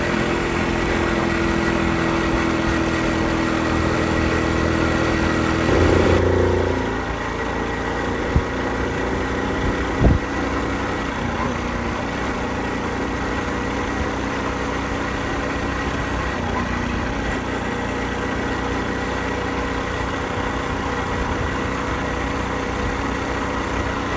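Honda Super Cub 50's small single-cylinder engine running steadily. About six seconds in it briefly swells louder, then the hiss drops away abruptly while the engine note carries on, with two short knocks a couple of seconds later.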